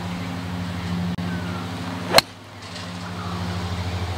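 A golf club strikes the ball in a full swing: one sharp crack about two seconds in. A steady low mechanical hum runs underneath.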